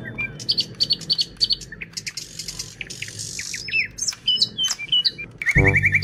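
Small birds chirping and tweeting in many short, quick calls. Music with a rapid ticking beat starts near the end.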